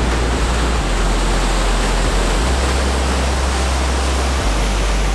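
Waves on Lake Michigan breaking and washing along an icy pier, with wind rumbling heavily on the microphone.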